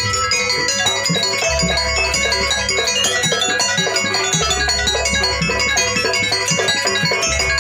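Jaranan dance accompaniment in gamelan style: quick, ringing metallic notes from tuned percussion over a deep low stroke that comes round about every three seconds.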